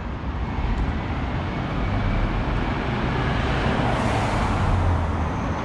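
Road traffic noise, with a motor vehicle passing close by, growing louder to a peak with a low hum about four to five seconds in before easing off.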